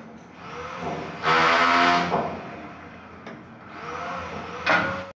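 A small motor spinning up and down a few times. It is loudest for about a second, starting just over a second in.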